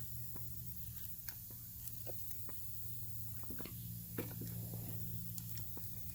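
Soft, irregular clicks and squishes of a Homelite chainsaw's primer bulb being pressed over and over to draw fuel into the carburettor, over a steady low hum.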